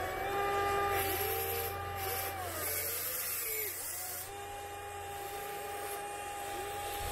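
Electric hydraulic pump of a 1/14-scale RC Volvo EC160E excavator whining steadily as the boom and bucket move. It drops off briefly about halfway and starts again. There are bursts of hissing in the first half.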